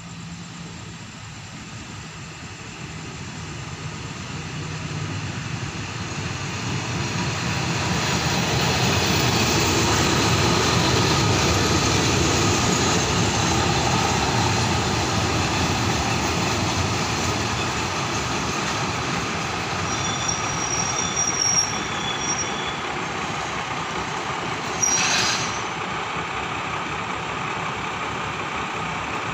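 Diesel multiple-unit passenger train running into the station, its engine and wheel rumble growing louder over the first ten seconds and then holding as it slows along the platform. Thin high brake squeals come about two-thirds of the way through, and a short sharp hiss follows soon after.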